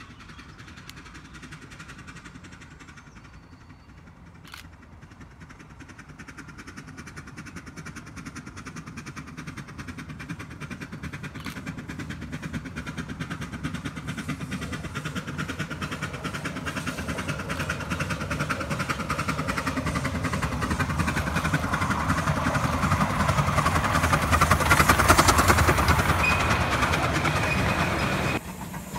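Miniature steam locomotive approaching along the track: its rapid chuffing and the rattle of its wheels grow steadily louder until it comes close and loudest, with a thin steady high tone just before the sound cuts off.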